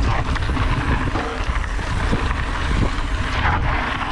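Wind buffeting a ride-mounted action camera's microphone as a mountain bike rolls fast down a dirt singletrack, a steady rumble with the tyres crunching over the dirt and short rattles and knocks from the bike over bumps.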